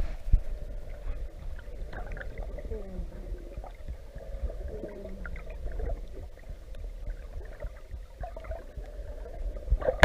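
Underwater ambience heard through a camera housing: a steady low rumble with scattered faint clicks and a few faint falling moans, about three and five seconds in.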